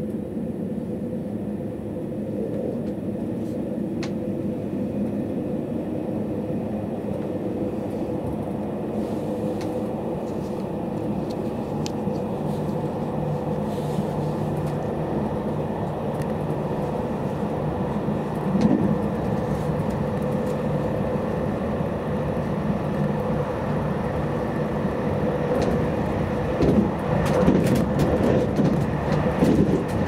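Interior running noise of a JR Hokkaido 789 series electric limited express pulling out of a station and gathering speed: a steady rumble of wheels on rail with a motor hum. It grows louder and more uneven near the end, with a few knocks.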